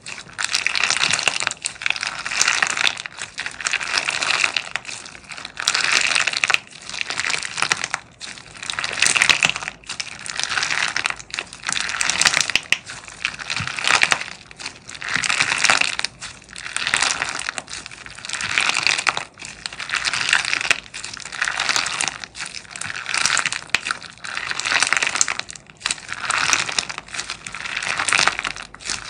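Clear chunky slime packed with green and white pieces being squeezed and kneaded by hand, making a dense crackling, crinkly noise. The noise swells and fades with each squeeze, roughly every two seconds.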